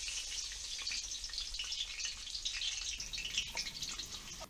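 Amla pulp sizzling and crackling as it fries in hot cow ghee and oil in a thick frying pan: a dense, even patter of fine crackles.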